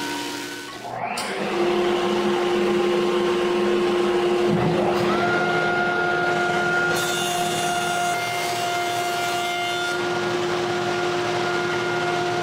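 Woodshop jointer running with a dust collector, a steady machine hum. A motor's pitch rises and levels off about five seconds in, and for a few seconds after that a board is planed across the jointer's cutterhead, adding a hissing cut.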